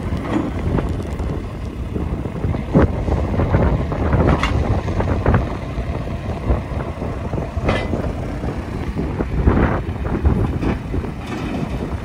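John Deere 310L backhoe loader's diesel engine running while its hydraulics raise the backhoe boom and lower a rear stabilizer leg, with a few short knocks along the way.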